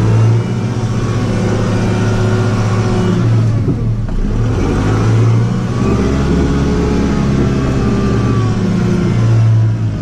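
Compact tractor's engine running under load as the front loader's hydraulics are worked from the joystick, heard from inside the cab; the engine pitch dips about four seconds in and then climbs back up.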